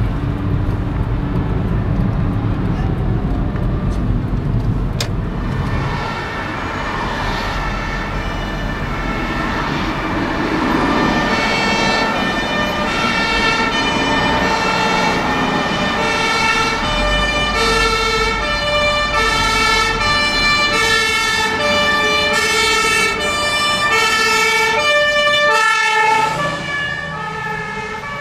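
Fire engine's German two-tone siren (Martinshorn) switching back and forth between two pitches, at first buried in the rumble of slow traffic and becoming clear and strong after about ten seconds.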